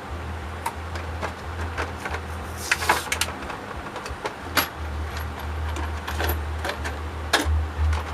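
Small metal bead-making tools being handled: scattered clicks and clinks over a low rumble of handling noise.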